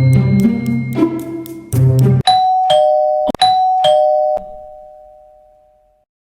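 Intro music with a beat that stops about two seconds in, followed by a two-note doorbell-style ding-dong chime sounded twice, the last note ringing out and fading away.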